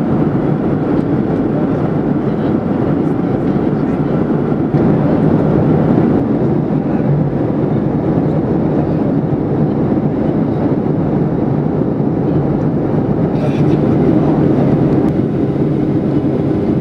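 Steady cabin noise of a Boeing 737-800 in flight, its CFM56-7B engines and the airflow heard from a window seat over the wing, getting slightly louder about five seconds in.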